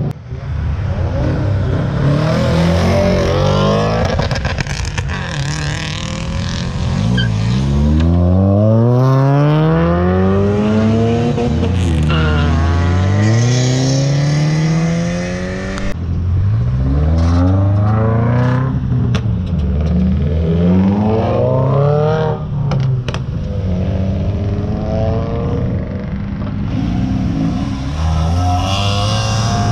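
Tuned cars accelerating hard away one after another. Each engine revs up and drops in pitch at every gear change before climbing again.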